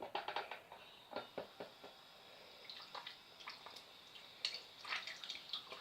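Irregular small wet clicks and drips from a homemade slime that is still holding water, being handled.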